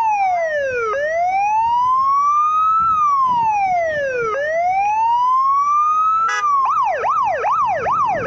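Police car siren sounding a slow wail, rising and falling over a couple of seconds per cycle. About six seconds in it switches, with a short burst, to a fast yelp of about two sweeps a second.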